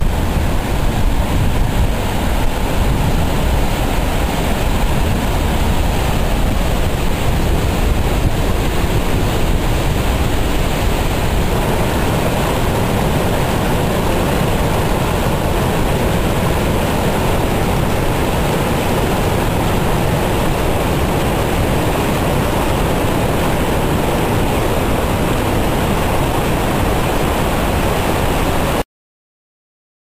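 Dettifoss, a large glacier-fed waterfall, pouring over its brink: a loud, steady rush of falling water, heaviest in the low rumble. It cuts off suddenly near the end.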